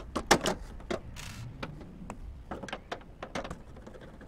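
Screwdriver clicking and scraping against screws and the sheet-metal case of a toaster oven: a run of irregular small clicks and taps, with a short scrape about a second in.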